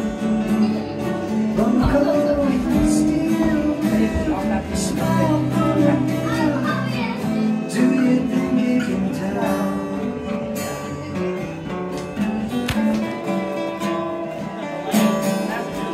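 Several acoustic guitars played together, strummed and picked in a steady jam.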